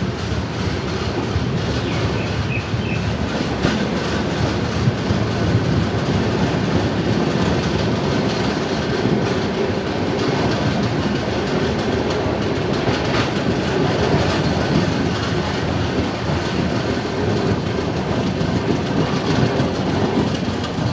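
Passenger train running at speed, heard from aboard: steady rumble and rattle of the coaches with wheels clattering over the rails.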